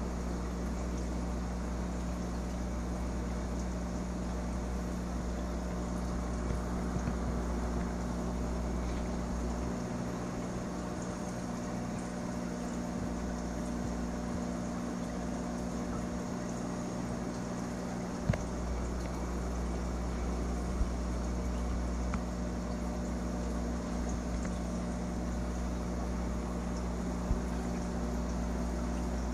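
Steady hum and water noise of a running aquarium pump, with a few small taps in the second half. The deepest rumble drops out about a third of the way in and comes back with a tap about two-thirds in.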